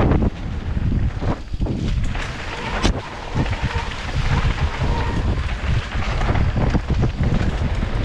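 Wind buffeting the microphone of a camera on a mountain bike descending a dirt trail at speed, with tyres rolling over dirt and leaves and the bike rattling over bumps. A sharp knock about three seconds in.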